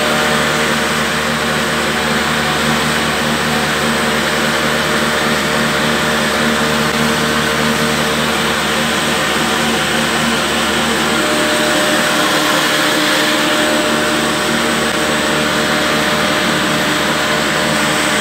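A belt-driven wheat flour mill and its 20 HP electric motor running steadily: a loud, even mechanical hum and rush with several steady tones.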